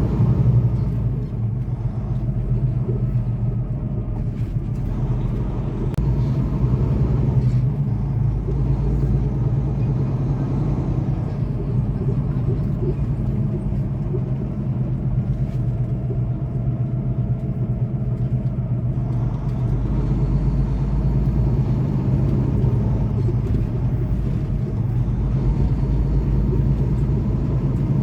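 Semi truck's diesel engine running steadily with road noise while driving: a continuous low drone.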